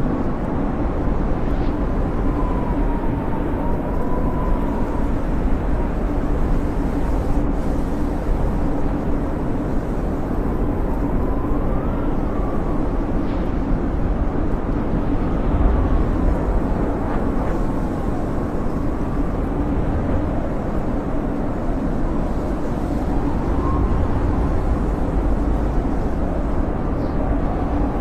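Snowstorm wind blowing steadily, a dense low rushing with a faint whistle that slowly rises and falls.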